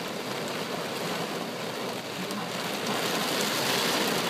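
Heavy rain pouring down on the car, a steady hiss of drops heard from inside the cabin.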